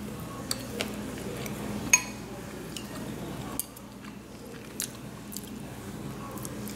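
A person eating from a bowl with wooden chopsticks: chewing, with a few sharp clicks of the chopsticks against the bowl, the loudest about two seconds in.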